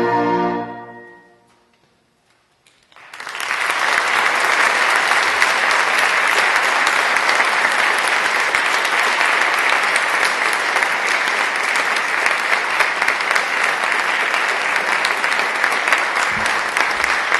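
A concert band's final held chord dies away in the first second or so, then after a brief hush the audience breaks into applause about three seconds in, which continues steadily.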